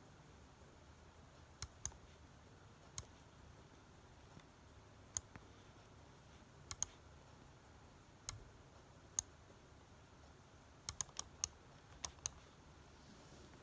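Laptop keys clicking one at a time at irregular intervals, about fifteen taps with a quick run of several near the end, over faint room hiss.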